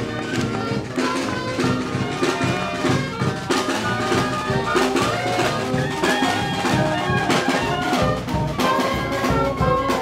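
Brass band playing, horns over a drum beat.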